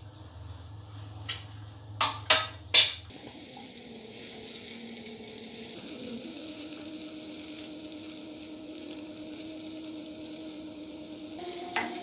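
Spatula stirring chopped dates in a stainless steel frying pan: a few sharp clacks of the spatula on the pan in the first three seconds and one more near the end, then a steady sizzle of frying.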